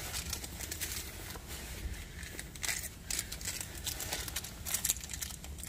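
Rustling and crinkling of a rucksack and plastic packets as a hand rummages through them, in short irregular clicks and scrapes.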